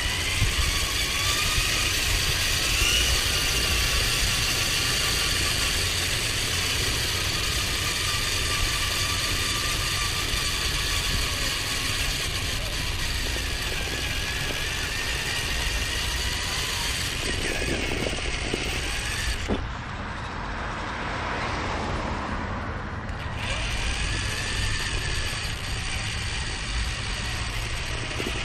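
Radio-controlled toy car's small electric motor and gears whining, the pitch rising and falling as it speeds up and slows down.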